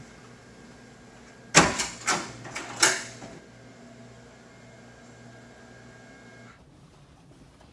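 Office door being opened: a quick run of four or five sharp clacks from the handle, latch and door over about a second and a half.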